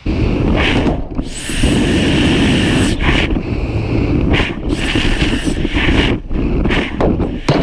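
Loud rushing wind buffeting the microphone of a camera on the SpaceX Dragon test capsule as it descends and its parachutes deploy, broken by several brief dropouts.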